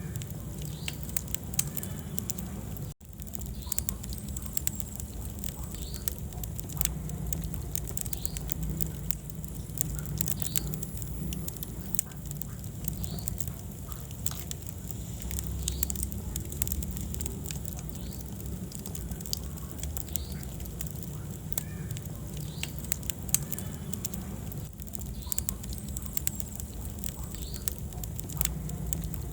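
Wood fire crackling in a fireplace: frequent sharp snaps and pops over a low steady rumble of the flames. The sound cuts out for a moment about three seconds in.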